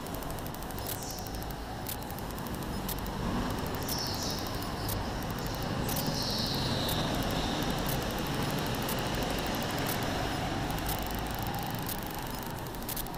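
Go-kart heard from on board, its engine running steadily through a lap, with brief high-pitched tyre squeals in the corners a few times.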